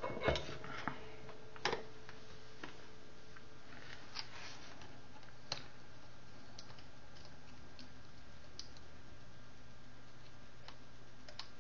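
Light clicks and taps of a circuit board and display module being handled, with the sharpest ones near the start and sparser, fainter ticks after, over a faint steady hum.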